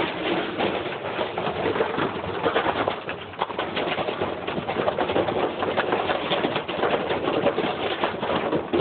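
Washing machine running with a heavy piece of metal loose in the drum, a constant rattling clatter over a throbbing rumble.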